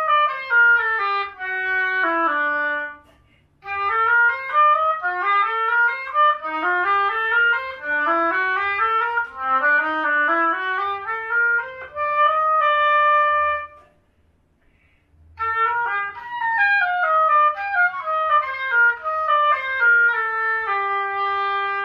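Howarth oboe played solo: quick runs of short notes, falling in the first phrase, then rising sequences and a few held notes. After a brief break comes another falling run that ends on a held low note.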